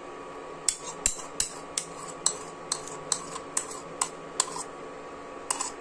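Steel spoon clicking and scraping against a small white bowl as tomato ketchup is scraped out into a pan: a steady run of light clicks, about two to three a second, over a faint steady hum.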